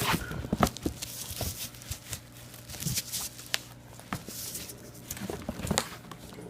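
Packaging being handled: rustling, crinkling and tearing, with scattered sharp taps and scrapes.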